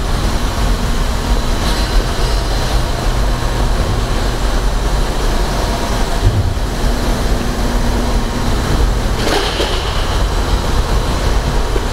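Loud, steady industrial background noise of a large factory hall: a low rumble under an even hiss, with no distinct events.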